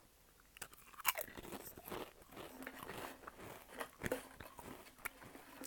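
A cat crunching and chewing a cheddar cheese Pringles crisp: a rapid, irregular run of short crisp crunches that starts about half a second in.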